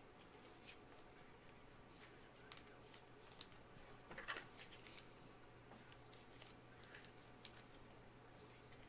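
Near silence: faint plastic rustles and a few soft clicks from gloved hands sliding a trading card into a clear plastic holder, over a low steady hum.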